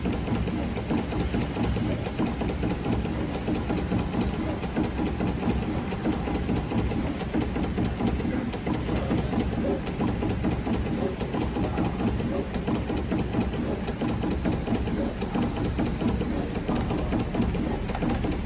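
Automatic PVC label dripping machine running: a steady mechanical hum from its motors as the multi-needle dispensing heads move over the mould, with many small sharp ticks in quick succession.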